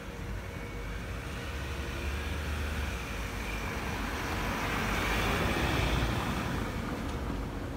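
A passing vehicle's noise that swells slowly, is loudest about five to six seconds in, then fades, over a faint steady hum.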